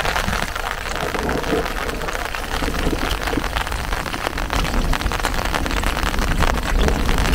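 Rain falling, a dense haze of many small drop ticks, over a steady low rumble.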